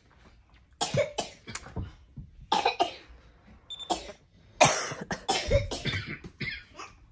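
A little boy coughing, a run of short coughs, some in quick pairs, spread over several seconds: a fresh bout of the cough he already has.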